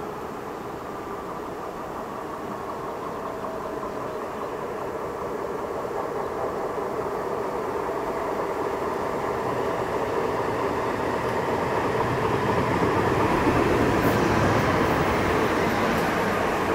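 Västtågen electric multiple unit approaching and running in alongside the platform, its wheel and motor noise growing steadily louder as it nears, loudest a few seconds before the end.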